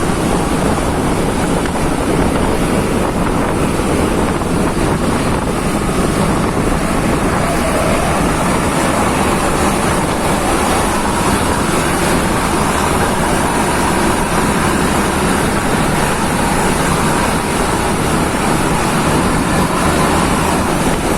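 Steady rumble of a moving vehicle mixed with heavy wind noise on the microphone, unchanging throughout.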